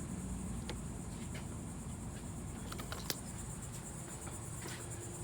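Crickets chirping steadily in a high, even trill, with a low rumble underneath and a few light clicks of hoses and fittings being handled.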